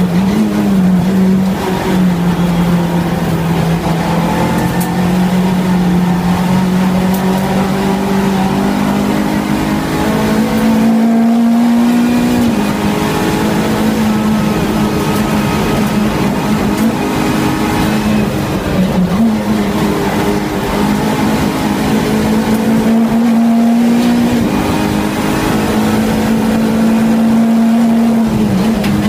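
Renault Clio Cup race car's four-cylinder engine running hard at high revs, loud and continuous. Its note climbs slowly and dips sharply several times across the stretch.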